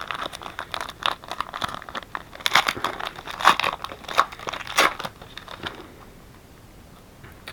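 Trading-card pack wrapper being torn open and crinkled by hand: a run of irregular crackles and rustles that stops about six seconds in.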